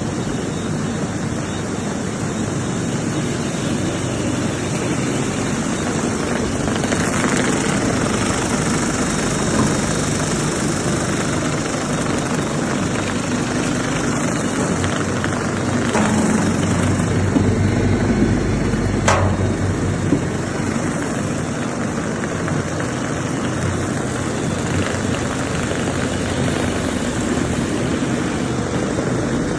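High-speed PVC heater-cooler mixer plant running: a steady, loud whirring machine noise with a low hum, and one sharp click about 19 seconds in.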